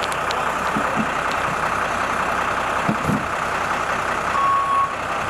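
Fire engines idling with a steady drone of diesel engines. Near the end, a vehicle's reversing beeper gives one long beep.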